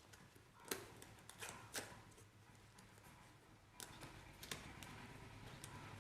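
Faint handling sounds of a small cardboard microphone box being opened by hand: a few soft clicks and paper rustles, spread out, with near silence between them.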